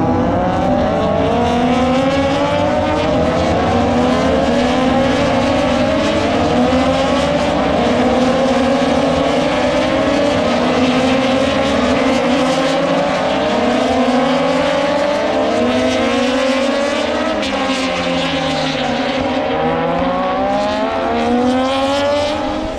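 Racing motorcycles accelerating along the circuit, their engines revving up through the gears over and over. Each upshift drops the pitch before it climbs again, with several bikes overlapping.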